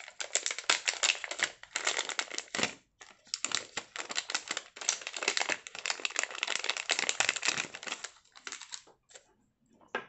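Clear plastic zip-lock packet crinkling and rustling in the hands, in dense crackling stretches with a short break about three seconds in, thinning to a few light ticks near the end.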